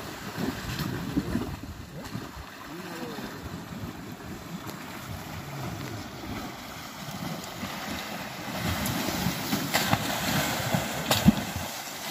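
Two African elephants splashing and sloshing through river water as they wrestle. The splashing grows louder in the last few seconds, with one sharp splash near the end.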